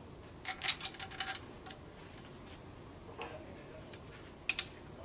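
Light metal clicks and taps of QLS locating bolts being handled and set into the holes of a metal flange riser on a base plate. A run of clicks comes in the first second and a half, a softer one a little past three seconds, and a sharp pair near the end.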